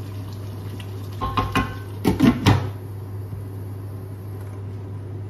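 A few light knocks of a wooden spoon against a cooking pot, then a louder clatter about two seconds in as a glass pan lid is set back on the pot, over a steady low hum.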